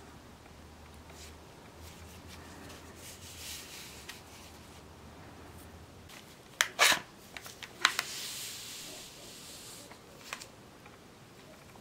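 Gloved hands handling a steel bayonet scabbard with a leather frog: soft rubbing and rustling, with sharp metal clicks of the bayonet against the scabbard a little past halfway. The loudest are a quick cluster, followed by another click about a second later.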